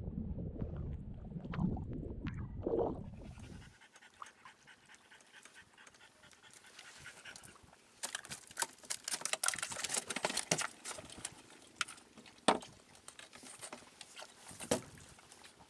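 Water rushing and sloshing close to the microphone for the first few seconds, then a French bulldog panting among scattered clicks and rustles, with two sharper knocks near the end.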